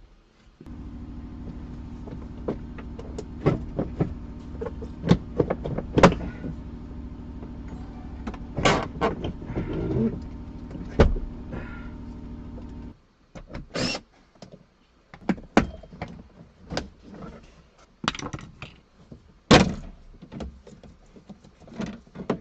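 Clicks, knocks and rattles of tools and interior parts being worked loose during a car dash teardown. Over the first half a steady machine hum runs, then cuts off suddenly about 13 seconds in.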